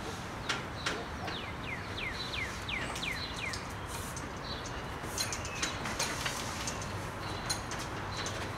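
MaxLine plastic air tubing being pushed through a PVC pipe held in a vise to straighten it: scattered sharp plastic clicks and knocks. A run of quick high chirps falling in pitch comes between about one and three seconds in.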